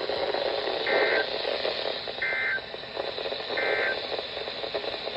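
Weather radio hiss with three short EAS digital data bursts, evenly spaced about a second and a half apart: the end-of-message code that closes a severe thunderstorm warning broadcast.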